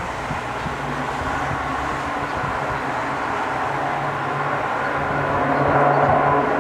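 Jet airliner's engines running at taxi power, a steady whine over a low hum, growing a little louder about six seconds in.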